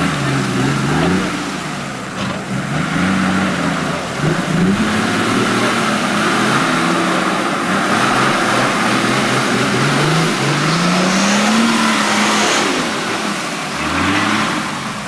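Mercedes-Benz G-Class off-road truck's engine revving up and down again and again as it pushes through deep muddy water, with the water churning and splashing steadily.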